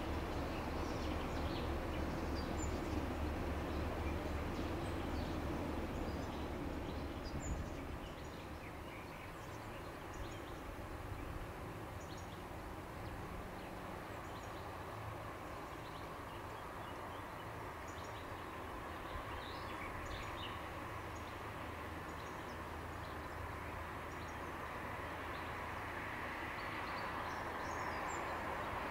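Riverside outdoor ambience: a low rumble that drops away about eight seconds in, then a steady faint background hum with scattered small bird chirps, and a hum that grows louder near the end.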